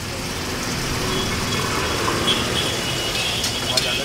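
Garlic and green chilli paste sizzling in melted butter on a large flat iron tawa, over a steady low rumble. A few light clicks come near the end.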